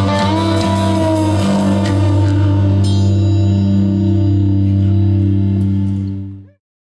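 Rock music with electric guitar and drums, ending on a long held chord, with a cymbal crash about three seconds in. It fades out quickly near the end.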